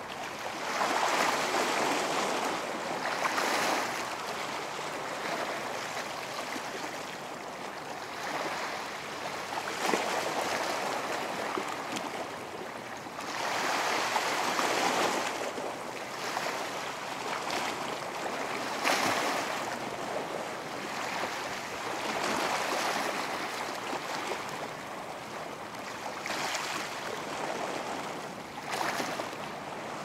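Ocean waves breaking on a beach: a continuous wash of surf that swells every few seconds as each wave comes in and ebbs between them.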